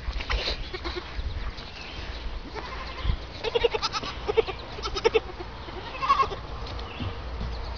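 Small goats bleating: a run of short, quavering bleats in the middle, then one higher-pitched bleat about six seconds in.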